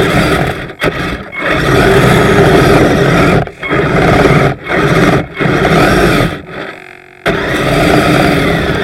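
Kyosho Blizzard RC snowcat's upgraded electric drive motors and metal tracks running in repeated bursts. It cuts off and restarts several times, with a longer pause about two-thirds of the way through.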